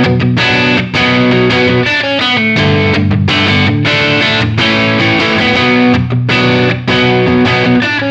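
Electric guitar, a Gibson Les Paul with PAF-style humbucker pickups, playing a riff of chords and notes struck in quick succession, with brief breaks about one and two seconds in and again near the end.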